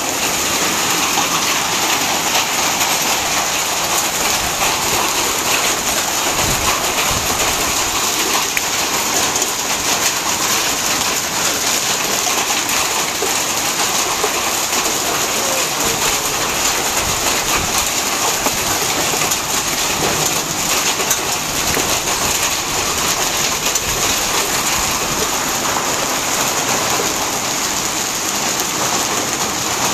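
Hailstones pelting down steadily in a dense, unbroken clatter, striking the ground and splashing into water.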